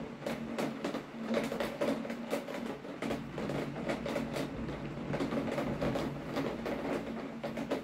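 Steady rain, with a dense, irregular patter of drops tapping close by over the wash of the downpour.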